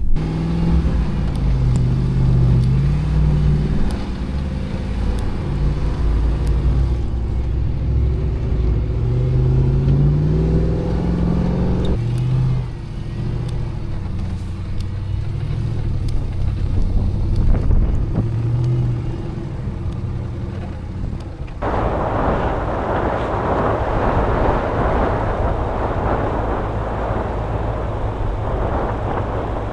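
A 4x4 vehicle's engine running under varying throttle, its pitch rising and falling as it climbs the trail. About 21 seconds in, the sound changes suddenly to a steady rushing noise.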